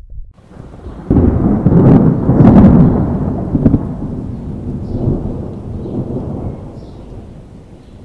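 A thunderclap: a sudden crack about a second in and a few sharp crackles, then a long rolling rumble that slowly fades.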